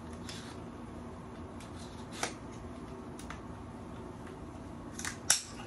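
Custom-built AR pistol being handled and its action worked to show it is clear: a few faint clicks, then two sharper clacks near the end, the second the loudest.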